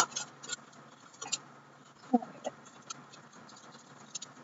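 Clear cellophane bag crinkling and crackling in the hands as it is opened, in sharp, irregular crackles, the loudest right at the start.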